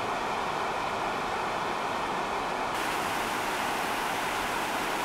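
Steady rush of a mountain river running over rocks and rapids.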